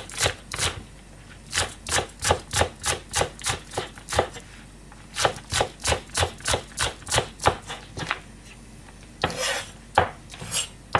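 Kitchen knife slicing a Japanese long green onion (negi) on a plastic cutting board. The knife comes down in runs of quick, even chops, about four a second, with short pauses between the runs.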